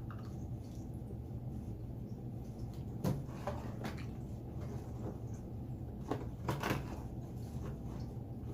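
A few soft clicks and knocks, one cluster about three seconds in and another about six seconds in, over a steady low hum.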